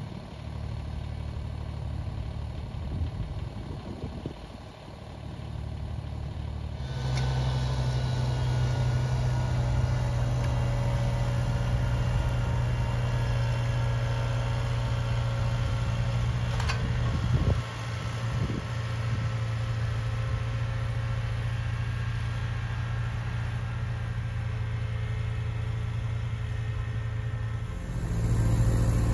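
Kubota BX sub-compact tractor's diesel engine running steadily under load, rising in level about a quarter of the way in. There is one brief knock a little past the middle.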